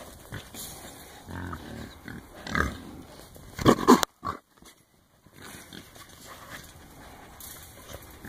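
Feral hogs grunting inside a trap pen, in short bursts a second or so apart, loudest just before four seconds in as one hog charges toward the panel. The sound then drops out for about a second before quieter grunting resumes.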